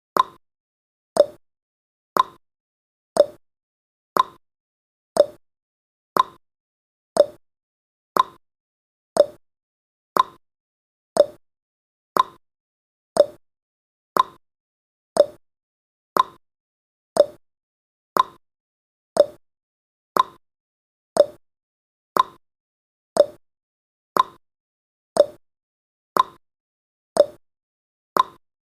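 Countdown timer's tick sound effect: one short tick every second, each fading quickly, in an even unbroken rhythm.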